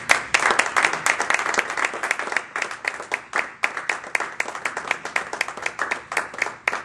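A small audience applauding, with a few close, sharp individual claps. The clapping is dense at first and thins into scattered claps toward the end.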